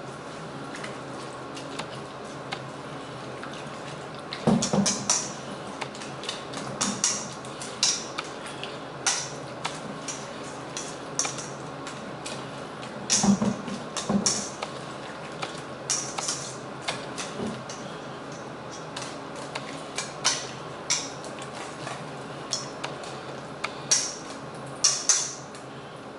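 Utensils clinking and knocking against kitchen cookware at irregular intervals, some strikes in quick clusters, over a steady background hiss.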